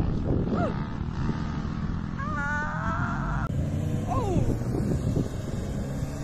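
A Toyota Hilux 2.7 VVT-i pickup's petrol engine revving under load as it drives over sand dunes. A wavering higher-pitched sound rises above it for about a second near the middle, and a falling glide follows shortly after.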